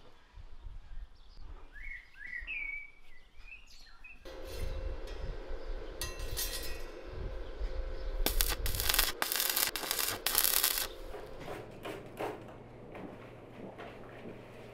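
A few bird chirps, then from about four seconds in the crackling sizzle of stick (arc) welding on a steel-rod frame, loudest in bursts in the middle. It dies away near the end, leaving a low steady hum.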